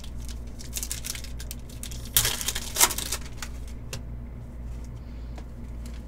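Panini Prizm trading cards being handled and flipped through: short clicks and rustles, with two louder scrapes a little after two seconds and just before three seconds. A steady low hum runs underneath.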